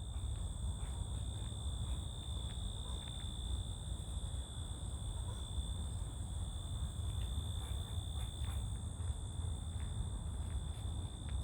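Crickets chirring in one steady, unbroken high-pitched drone, over a low rumble.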